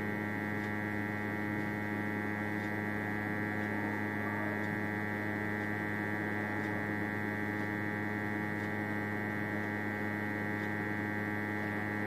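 Hot air rework station blowing hot air through a wide nozzle onto a phone board to melt the solder under an eMMC chip. It is a steady, unchanging hum with many fixed tones.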